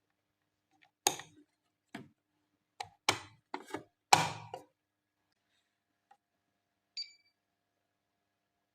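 Janome embroidery machine being handled: a run of sharp clicks and knocks in the first half, then one short electronic beep from its control panel about seven seconds in.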